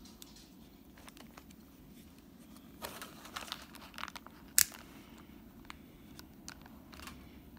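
Plastic packaging crinkling and rustling as hands handle a small camera in a clear plastic case. Scattered small clicks, with a sharp plastic click just past halfway.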